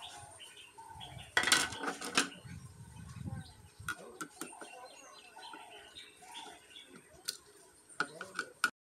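Hard plastic battery cover clattering as it is lifted off the underside of an electronic weighing scale, then a screwdriver tip clicking and scraping on the metal plate in the battery compartment, with a quick run of clicks near the end. Birds chirp faintly in the background.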